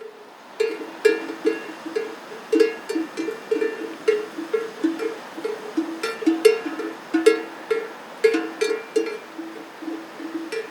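Livestock bells clanking irregularly, several strikes a second at two or more different pitches, as the animals wearing them move.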